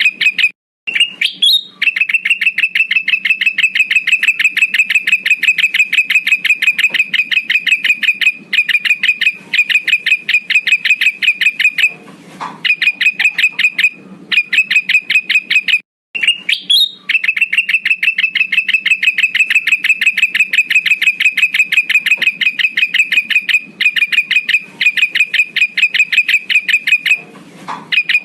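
Looped lure-call recording of a male kutilang emas bulbul singing: a fast, even trill of high chirps on one pitch, about ten a second. It breaks off twice, and each break is followed by a short upward sweep; the whole pattern repeats about every 15 seconds.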